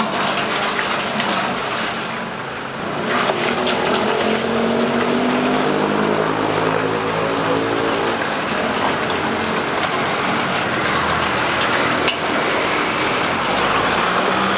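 Water pouring steadily from a large plastic bottle into a stainless steel pot, over the engine sound of road traffic. A single sharp click comes near the end.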